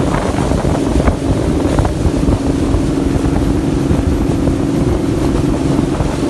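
Engine running steadily; its note shifts just as the sound begins and then holds. Wind buffets the microphone with a low rumble.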